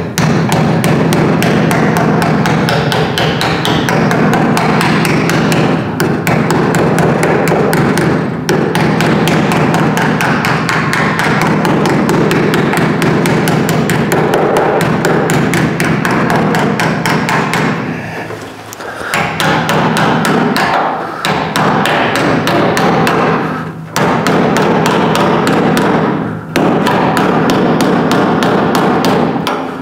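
Rapid, continuous light taps of a steel hammer on a sheet-steel patch panel, stretching and forming the patch to the curves of a car's rear window frame. The tapping stops briefly a few times, longest a little past halfway through.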